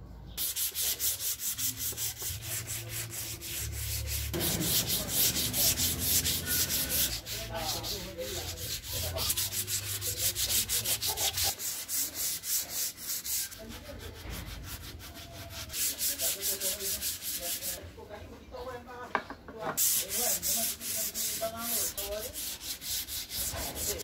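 Rapid back-and-forth scratchy rubbing strokes on a wooden frame, several strokes a second, pausing briefly a few times.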